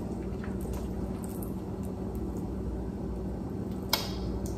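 Steady low hum of kitchen room noise, with a spoon clicking once about four seconds in as stuffing mixture is spooned into a waffle iron.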